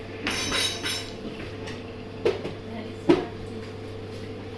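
Two sharp clinks of eating utensils against a plate, about two and three seconds in, after a brief rustle near the start, over a steady low hum.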